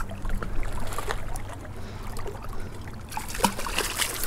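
Hooked speckled trout thrashing and splashing at the water's surface as it is reeled in, starting about three seconds in, over a low steady rumble of wind and lapping water.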